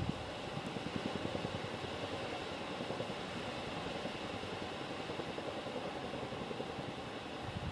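Chinook tandem-rotor helicopter flying overhead, its rotors making a steady, rapid low pulsing.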